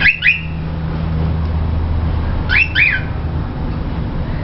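Young cockatiel whistling a short, repeated two-note phrase of quick sweeping notes, once at the very start and again about two and a half seconds in: a bird just beginning to learn whistled tunes. A steady low hum runs underneath.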